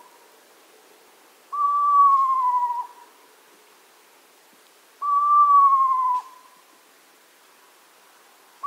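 Eastern screech owl giving its territorial whinny: a high whistled call about a second long that falls slightly in pitch. It comes twice, about three and a half seconds apart, and a third call begins right at the end.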